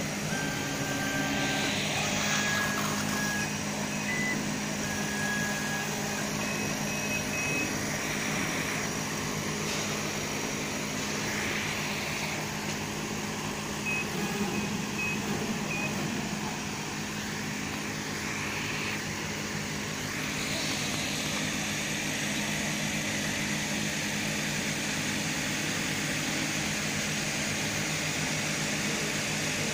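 CO2 laser cutting and engraving machine running while it engraves: a steady hum and rush of machine noise, with short high-pitched whines now and then.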